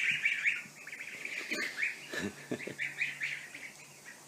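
Ducklings peeping: a rapid string of short, high peeps, several a second, thinning out after the first second, with a single sharp click about a second and a half in.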